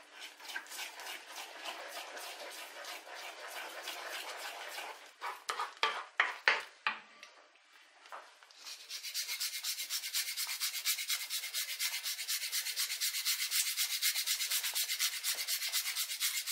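Wooden spoon stirring thick béchamel in a non-stick frying pan, with a few louder strokes about halfway through. After a short pause, whole nutmeg is rasped on a fine metal grater, about six even strokes a second.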